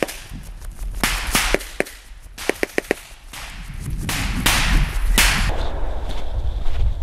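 Footsteps crunching and scuffing on loose sand as people walk, with a few quick sharp clicks about two and a half seconds in and a steady low rumble underneath.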